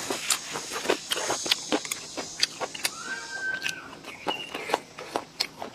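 Close-miked eating: irregular wet chewing, crunching and lip-smacking clicks. A brief squeaky tone is heard about three seconds in.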